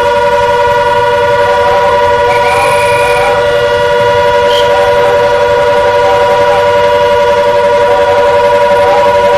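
Civil-defence air-raid siren sounding a loud, steady tone that neither rises nor falls, a precautionary warning during a blackout.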